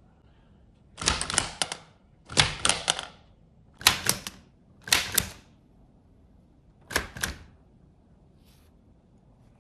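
Keys of a ROKR Vintage Typewriter wooden model being typed. The key strikes come in five short runs of rapid clicks with brief pauses between them.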